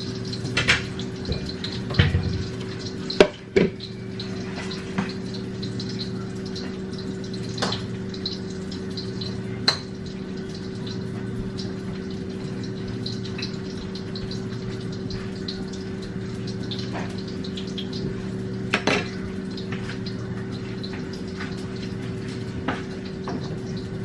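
French fries sizzling and crackling in hot oil in a frying pan, over a steady low hum. Clinks of dishes and utensils come several times in the first four seconds, then once near the middle and again a little later.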